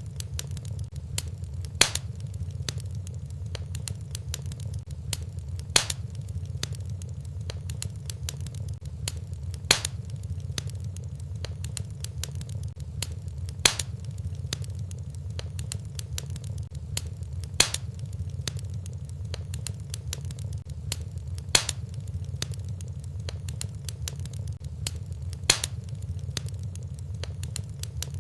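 Fireplace wood fire crackling over a steady low rumble, with many small snaps and a louder pop about every four seconds. The pops come at even spacing, as in a looped fire recording.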